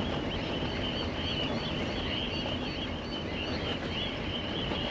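Vehicle driving slowly along a rough dirt track, a steady low rumble of tyres and wind, with a continuous high-pitched chirping running behind it.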